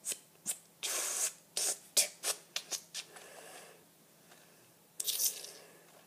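Handling noise from a hand-held camera and the small toy held against it: a run of clicks and short rustling scrapes, with longer rustles about a second in and again near five seconds.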